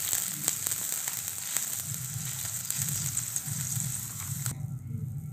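Milk sizzling in hot oil in a wok over fried onions and dried red chillies, with a few sharp crackles. The sizzle cuts off suddenly near the end.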